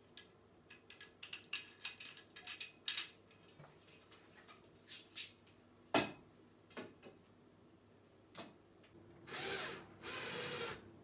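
Scattered clicks and knocks of a long rail being handled and fitted, the sharpest about six seconds in, then a cordless drill runs in two short bursts near the end.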